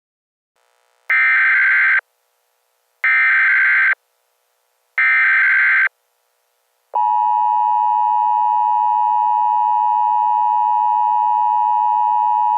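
Emergency Alert System tones: three one-second bursts of the screechy SAME digital header, a second apart, then about seven seconds in the steady two-tone EAS attention signal starts and holds.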